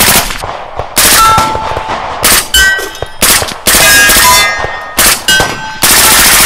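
Suppressed AR-style rifles firing a series of rapid bursts, the longest about a second, with steel targets ringing after the hits.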